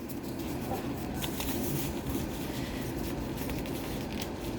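Hand gloves being pulled on, with faint rustling and light crackles over a steady low hum.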